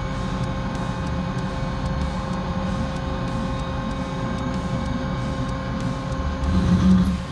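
CNC machine spindle driving a solid carbide drill through a 16 mm 4140 steel plate clamped at one end only: a steady machine whine and cutting noise, which gets louder for a moment near the end.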